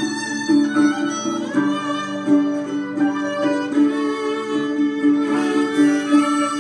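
Gospel music from a small trio, with sustained melody notes over a steady accompaniment.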